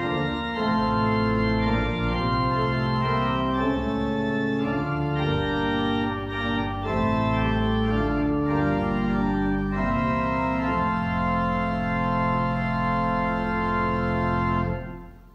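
Church organ playing the final line of a hymn tune in sustained chords, ending on a long held chord that is released near the end.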